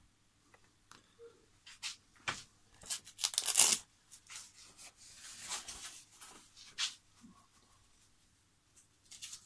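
Irregular rustling and scraping handling noises with scattered clicks, the loudest a tearing burst about three and a half seconds in. The model engine is not running.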